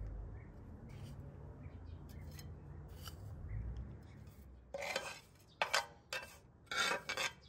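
A metal spoon scraping and stirring dried mint through oil in a metal pan: a quick run of separate scrapes and clinks starting about two thirds of the way in. Before that, only a low steady rumble with faint ticks.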